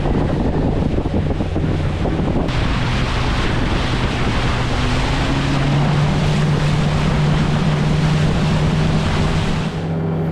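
River boat underway: the steady hum of its 115 hp Suzuki four-stroke outboard under the rush of water along the hull, with heavy wind on the microphone.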